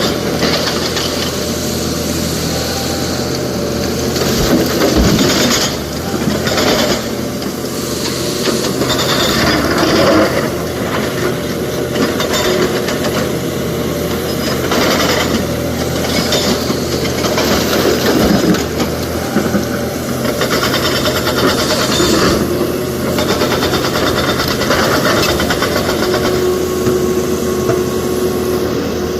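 SANY excavator's diesel engine running steadily under load, with clattering bursts of rock and bucket every few seconds as it loads a dump truck.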